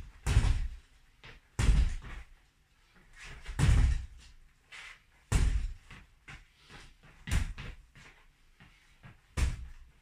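Boxing gloves landing punches on padded punching bags and a dummy: heavy thuds about every two seconds, with lighter taps and rattles in between.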